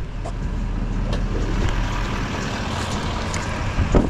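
Wind buffeting the microphone over road and tyre noise while riding a small vehicle along pavement. A few sharp knocks, the loudest near the end.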